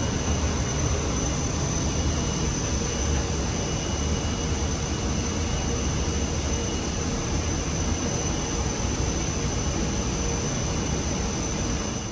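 Jet aircraft turbine noise running steadily: an even roar with a low rumble and a high whine held at one pitch.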